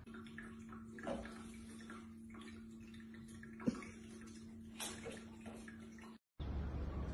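Electric pet water fountain running: a steady low pump hum with water trickling, and a few light taps and knocks, the sharpest about three and a half seconds in. It cuts off abruptly a little after six seconds, giving way to a louder hiss.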